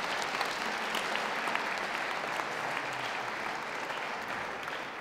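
Audience applauding with steady clapping that begins to die away near the end.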